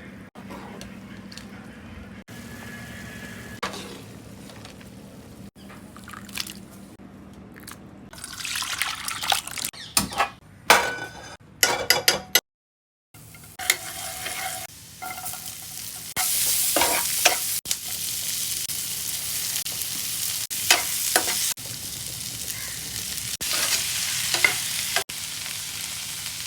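Vegetables sautéing in a hot pan, sizzling while a utensil stirs and scrapes them, with sharp clinks against the pan. It is quieter at first, with a clattering stretch about eight to twelve seconds in, and from about sixteen seconds in the sizzling is a loud, steady hiss.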